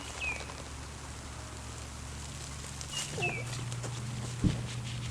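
A small bird's short call, a brief high note then a falling slur, heard twice about three seconds apart over a steady low hum, with a single soft thump near the end.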